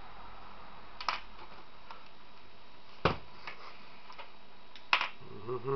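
Sharp plastic clicks and light taps as a precision screwdriver works at the edge of a laptop's screen lid, with three louder clicks about two seconds apart and a few fainter ticks between them.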